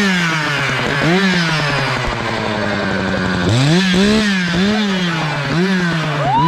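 Echo two-stroke chainsaw revved in quick throttle blips, each a short rising-and-falling whine, dropping back to a steady idle for about two seconds in the middle before the blips start again.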